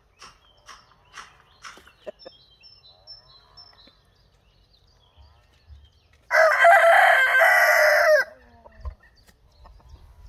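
A rooster crowing once, a loud crow of about two seconds starting about six seconds in and dropping in pitch at the end.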